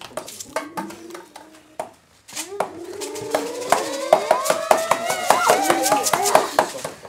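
Clattering taps and knocks on homemade percussion instruments made from recycled objects, stopping briefly about two seconds in. About half a second later several overlapping wavering, gliding pitched sounds come in over the tapping.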